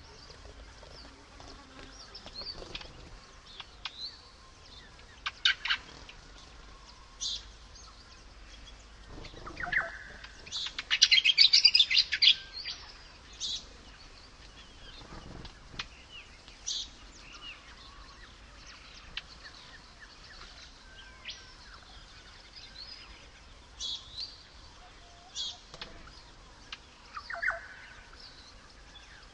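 Assorted wild birds calling and chirping, with short high calls scattered throughout and one loud, rapid chattering run of calls about ten seconds in.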